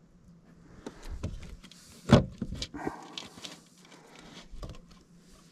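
Handling noises of a fish on a plastic measuring board in a kayak: scattered knocks and rubbing, with one sharp knock about two seconds in the loudest.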